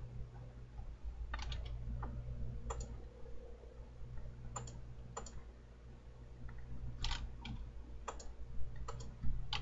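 Scattered sharp clicks from a computer mouse and keyboard, about a dozen, some in quick pairs, over a steady low electrical hum.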